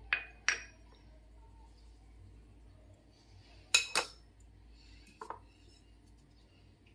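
Metal mesh sieve and ceramic tableware clinking during flour sifting. There are a few sharp clinks: two near the start, a louder pair about four seconds in as the sieve is knocked against the bowl, and a lighter one a second later.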